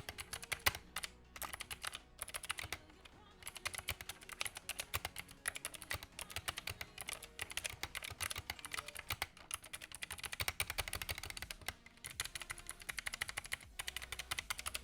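Fast typing on a mechanical keyboard with clicky Gateron Blue switches: a rapid, uneven stream of sharp key clicks, broken by a few brief pauses.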